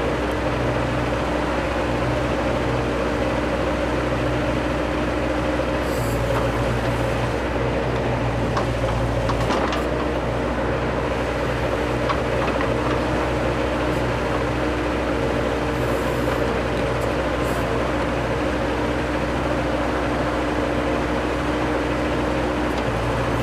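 Bobcat 763 skid steer's diesel engine running steadily while working a backhoe attachment, its note shifting slightly a few times as the hydraulics take load.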